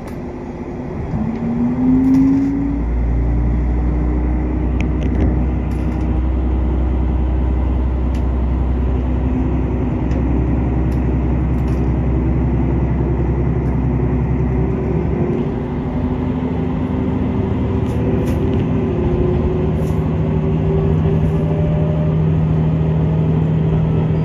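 Diesel railcar heard from inside the cabin as it pulls away from a station: the engine note rises in the first couple of seconds, then settles into a steady low drone under power. The note changes about fifteen seconds in.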